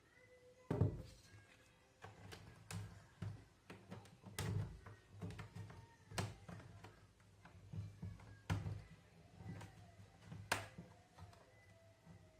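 Plastic clips of a laptop's bottom cover clicking and snapping loose one after another as a prying tool is worked along the seam, in irregular sharp clicks and knocks, the loudest about a second in and near the end.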